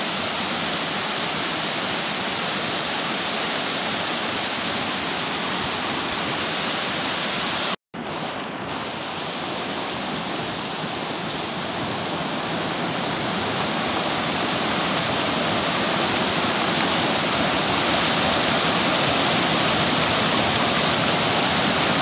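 Rushing mountain creek tumbling over rocks: a steady rush of white water. It cuts off for an instant about eight seconds in, then comes back and grows gradually louder.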